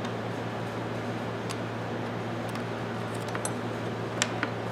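Scattered light metallic clicks and ticks of small ratchet parts and a tiny screwdriver being handled while a Craftsman 44811 3/8-inch ratchet is put back together, the sharpest click about four seconds in, over a steady low background hum.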